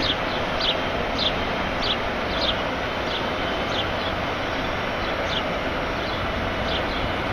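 A small bird chirping repeatedly, short high falling chirps about one or two a second, over a steady hum of city traffic.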